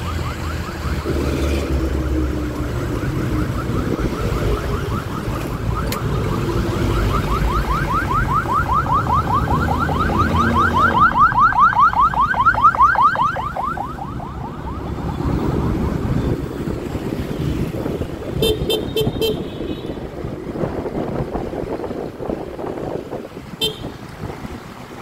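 An electronic siren or alarm sweeps up in pitch several times a second, growing louder about eleven seconds in and then fading out a couple of seconds later. It sits over the steady low rumble of riding wind and road traffic. A few short horn beeps follow later on.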